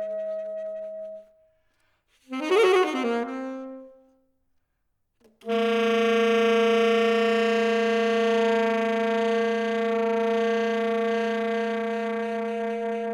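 Solo saxophone playing a contemporary piece: a held note ends about a second in, a short loud note with a wavering, bending pitch follows after a pause, then after another silence a long low note is sustained steadily.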